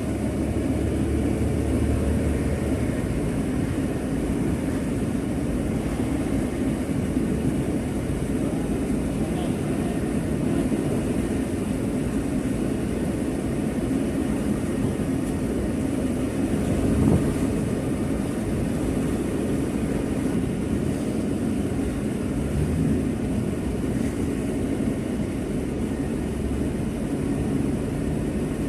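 Steady low rumble of a vehicle on the move, engine and road noise at an even level.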